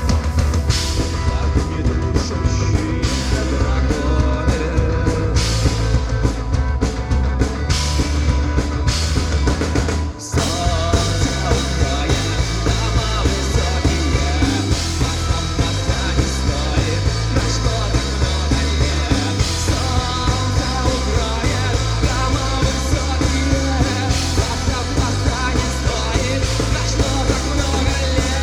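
Rock band playing live: drum kit and bass keep a steady beat under the full band, with a short break about ten seconds in before the music carries on.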